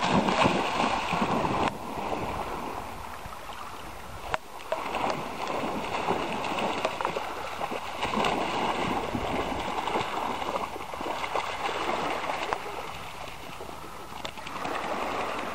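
Two Labrador retrievers splashing through shallow seawater, a continuous uneven sloshing of water, with one short sharp click about four seconds in.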